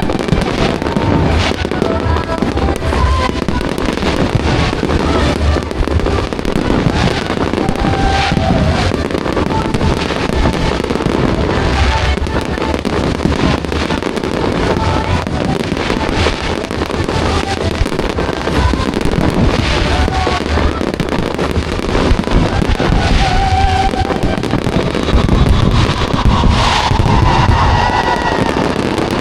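A fireworks display: a continuous barrage of bangs and crackling bursts, with music playing alongside.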